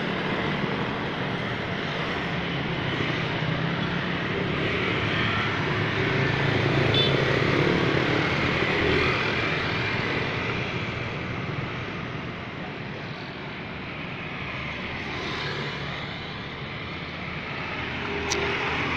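Road traffic: motorbikes and other vehicles passing one after another, their engines swelling and fading as they go by.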